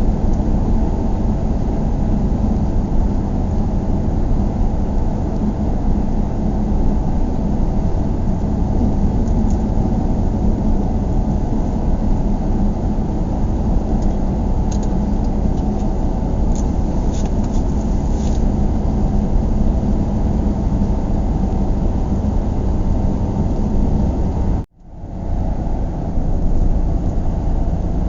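Steady low road and engine rumble of a car driving, heard from inside the cabin, with a constant hum underneath. About 25 seconds in, the sound cuts out abruptly for a moment and fades back in.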